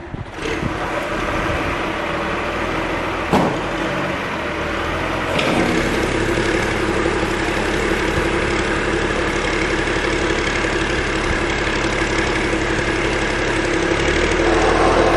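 John Deere 710D backhoe's diesel engine starting and running steadily, with a single knock about three seconds in. The engine gets louder about five seconds in and again near the end.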